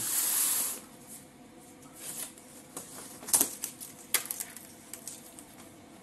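Plastic packing straps being pulled off a cardboard carton: a loud scraping rush in the first second, then scattered clicks and light rustles.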